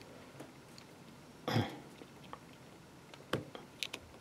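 Small screwdriver scraping and clicking against the metal ears of an IF transformer base as they are pushed over, a few sharp clicks near the end. About a second and a half in there is one short, low throaty sound.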